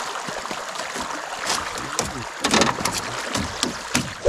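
Water splashing and churning beside an aluminium boat, over a steady wash of wind and water. From about a second and a half in come a series of sharp knocks and clicks.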